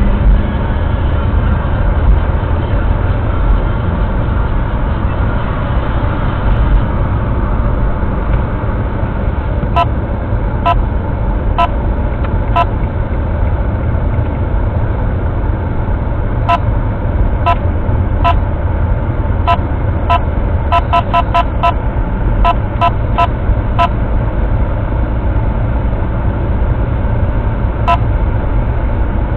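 Steady in-cabin road and engine noise from a car driving at city speed. From about ten seconds in there are short, sharp pitched ticks, first about one a second, then a quick run of several near the end and a single one just before it.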